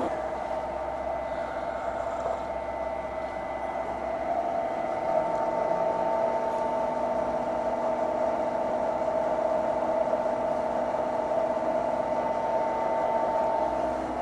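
Milling machine running steadily while taking a light 0.5 mm cut along the side of an aluminum plate.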